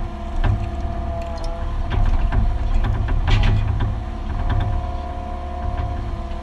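Mini excavator working, heard from inside the cab: the engine runs steadily under the whine of the hydraulics, with scattered knocks and rattles from the machine, the loudest about three seconds in. A second whine joins in past the middle as the boom moves.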